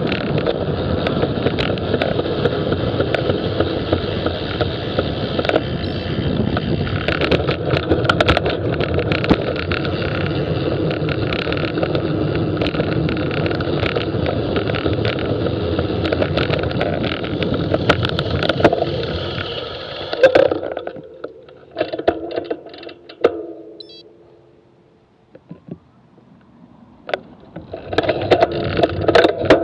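Wind and road noise on the microphone while riding a bicycle, a steady rush with scattered rattles and clicks. About twenty seconds in it fades to nearly quiet with a few sharp ticks, and the rush returns a couple of seconds before the end.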